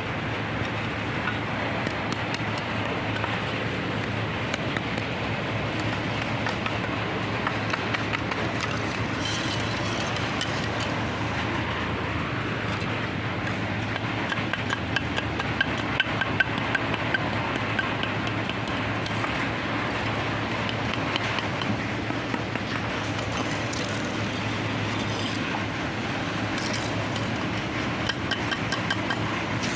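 Steady machine running with a low hum, under frequent light, hard clicks and clinks.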